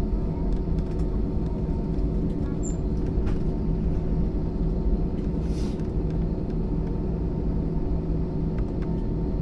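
Steady low rumble of an Airbus A320 heard from inside the cabin on the ground before take-off, its engines running, with a faint steady whine over it and a few light clicks.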